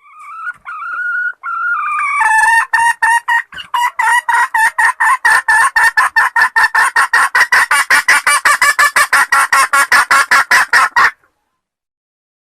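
Red junglefowl (wild chicken) calling: a wavering drawn-out note for about two seconds, then a fast, even series of clucks, about five a second, that stops abruptly near the end.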